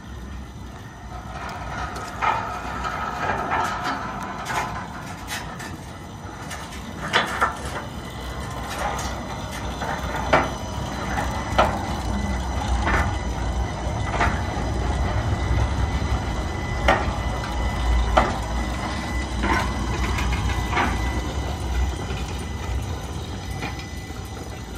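Two-foot-gauge electric box motor car running on its dual AC traction motors: a steady low rumble as it rolls along the track, with sharp clicks from the wheels on the track every second or so.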